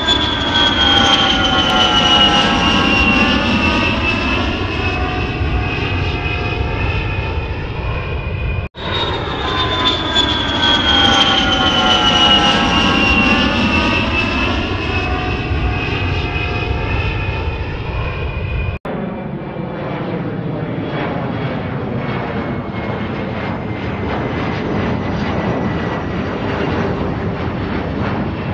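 Jet airliner flying past: a heavy engine rumble with a high whine that falls in pitch as it goes by. The recording cuts off abruptly and restarts about nine seconds in, then switches near nineteen seconds to a steadier engine noise with little whine.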